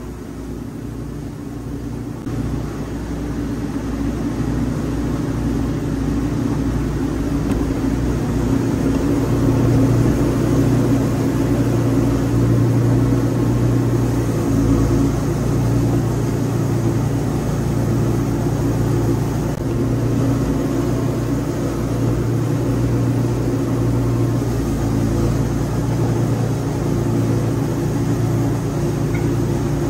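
Wood-Mizer LT40 bandsaw sawmill running and sawing a log into boards, a steady mechanical drone. It grows louder over the first several seconds, then holds steady.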